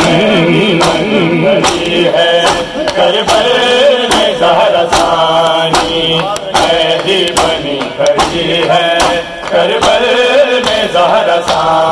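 Mourners' matam: open hands striking bare chests in a steady beat, about one and a half strikes a second, under men's voices chanting a lamenting nauha refrain.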